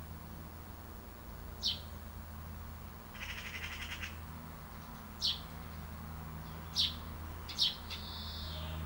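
Small birds chirping: several single sharp, falling chirps, a short rapid buzzy trill about three seconds in, and a longer falling note near the end, over a steady low hum.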